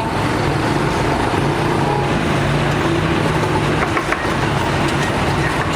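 Steady motor vehicle noise with a low engine hum.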